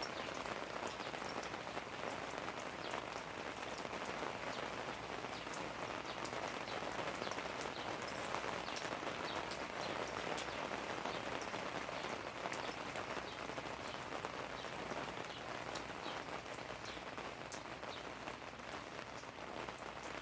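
Steady heavy rain falling and splashing on surfaces, an even hiss with many small sharp drop impacts.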